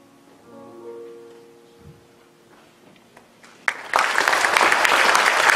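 The last soft, held notes of the song's accompaniment fade away. A little under four seconds in, an audience breaks into loud applause.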